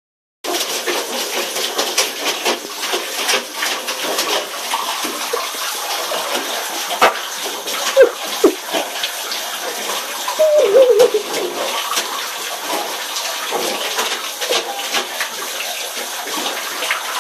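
Water running and splashing in a bathtub as a pit bull puppy plays in it, with many small splashes and scrabbles. A few short wavering cries from the puppy come near the middle.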